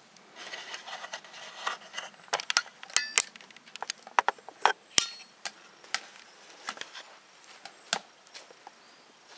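Irregular knocks and clatter with a few short ringing metallic clinks, the loudest about three and five seconds in: metal parts of a camping wood stove being handled and fitted.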